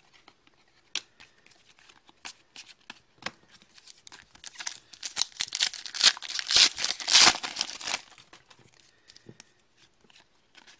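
A trading-card pack's wrapper being torn open and crinkled by hand: scattered crackles at first, then a few seconds of dense tearing and crinkling in the middle, the loudest part, tapering to a few light rustles.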